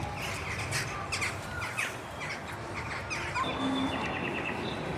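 Birds chirping and calling: a rapid run of short, quick chirps, then some longer trilled high notes from about three and a half seconds in.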